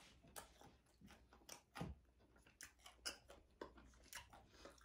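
Near silence broken by faint, irregular mouth clicks from quiet chewing close to the microphone.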